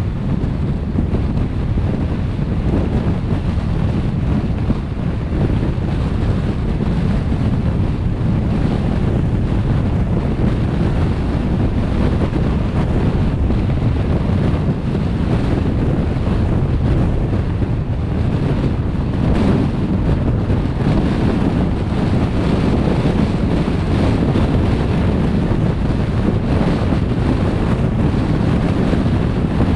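Steady road and wind noise of a car driving along a motorway: a low rumble with a fainter hiss above it.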